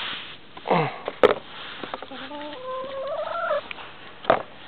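Domestic hen calling: a short call near the start, then a drawn-out call that rises in pitch for about a second and a half. Two sharp knocks, about a second in and near the end.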